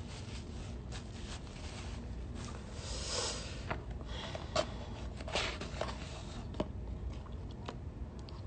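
Eating noises with a plastic spoon: a few sharp clicks and smacks and one short rustle about three seconds in, over a low steady hum.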